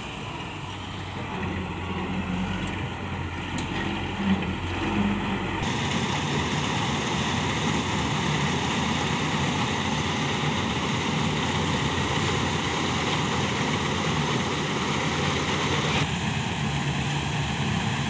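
Malkit combine harvester running while cutting rice: a steady engine and machinery noise. The sound changes abruptly about six seconds in and again near the end.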